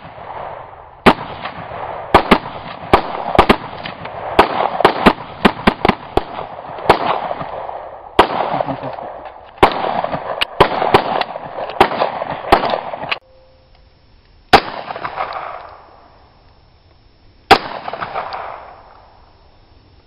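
Rapid semi-automatic fire from an M4-style AR-15 carbine: about two dozen shots in quick strings over some twelve seconds, each crack trailing off in an echo. Then two single 9mm pistol shots from a Beretta M9, about three seconds apart.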